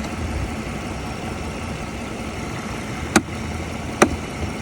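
Mercedes-Benz C300 engine idling steadily and quietly with its newly replaced alternator. Two sharp clicks sound a little after three seconds in and again about four seconds in.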